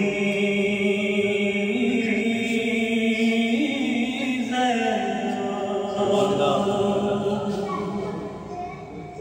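A man chanting a marsiya in the soz style, unaccompanied, holding long drawn-out notes. The melody steps up twice, falls away about halfway through, and fades near the end.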